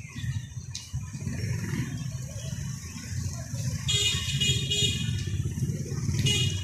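Street traffic rumbling steadily, with a vehicle horn sounding for about a second about four seconds in and briefly again near the end.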